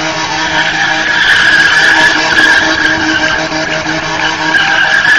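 Car tyres squealing in one long, unbroken, loud screech as the car spins donuts on asphalt, dipping slightly about three and a half seconds in.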